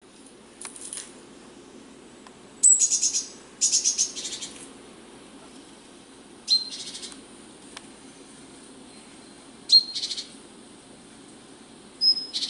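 Wild songbirds chirping in quick, high trills, about six short bursts a second or a few seconds apart, from the soundtrack of an outdoor wildlife video played through small computer speakers.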